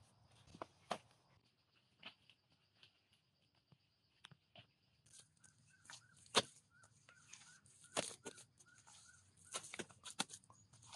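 Wet mud being scooped up by hand and packed onto a wall: irregular soft squelches and sharp slaps, the loudest about six and eight seconds in and a cluster near the end.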